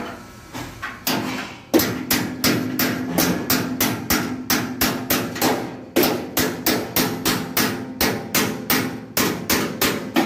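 Old pliers used as a hammer, striking the steel enclosure of an electrical panel board in quick repeated blows, about three a second, with a metallic ring. A few lighter taps come first, then steady hammering from about two seconds in.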